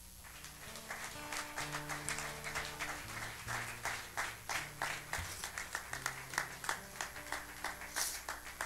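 Live acoustic guitar music starting up out of near silence and building, with held notes that change pitch and sharp strum-like strokes.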